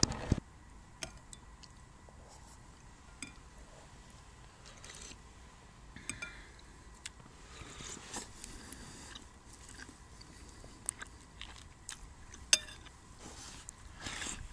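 A person eating soup with a metal spoon: faint chewing and scattered light clicks of the spoon against the bowl, with one sharper click near the end.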